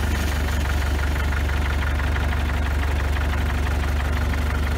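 An older counterbalance forklift's combustion engine idling steadily in neutral just after being started, running normally. It has a deep, even hum with a fine regular pulse.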